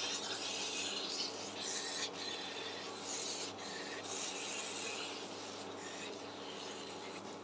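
Silicone spatula scraping and stirring thick olive pickle around a non-stick pan, a rasping rub that comes in repeated strokes as the pickle cooks down.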